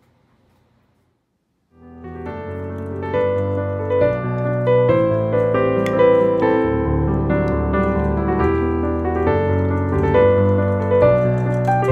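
Background piano music starts about two seconds in, after a moment of near silence, and plays on steadily.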